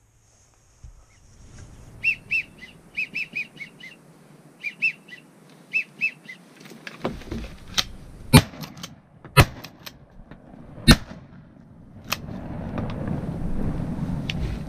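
Bird calling in short high whistled notes, often in pairs, then three loud sharp knocks about a second apart, followed by a low rustling noise near the end.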